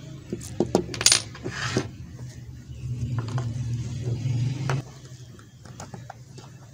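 Small metallic clicks and clinks as an AA battery and a thin metal pin are handled and tapped together on a wooden tabletop, the loudest about a second in. A steady low hum runs underneath and drops away about five seconds in.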